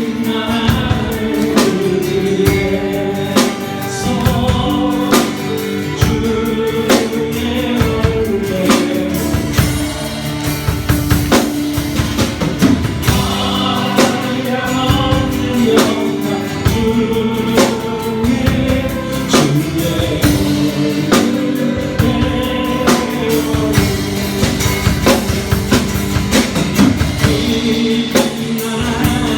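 Live church praise band playing a worship song, with voices singing over held chords and a drum kit keeping the beat.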